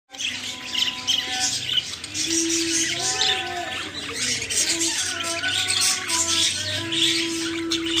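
A flock of caged budgerigars chattering and warbling without a break, over long held low tones like music.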